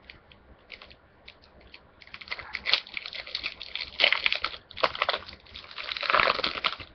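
A foil Yu-Gi-Oh booster pack wrapper being crinkled and torn open in loud, irregular rustling bursts, after a couple of seconds of light ticks from cards being handled.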